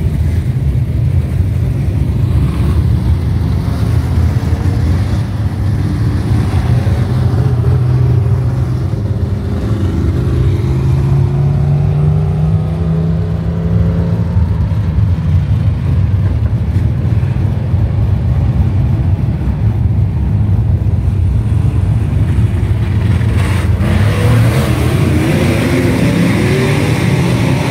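A pack of dirt-track race cars' engines running together in a loud, steady rumble, with engines revving up in rising pitch partway through and again near the end as cars accelerate past.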